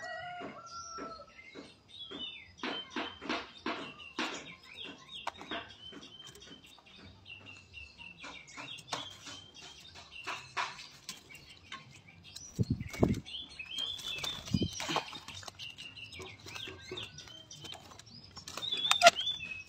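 Oriental magpie-robin singing a fast string of short chirps and clicks, a song that imitates a sooty-headed bulbul. A couple of low thuds come in the middle, and one loud call comes near the end.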